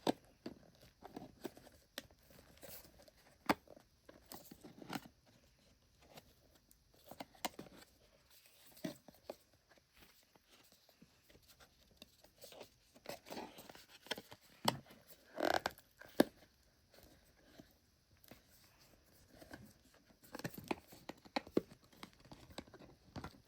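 Packaging of a wireless charger being handled while someone struggles to open it: scattered rustles, scrapes and small clicks as the box is pulled and picked at, with a louder rustle about two-thirds of the way through.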